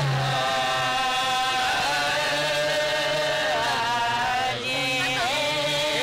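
An old Gurung folk song: a voice holding long, drawn-out notes that bend and slide where they change, over a low steady note.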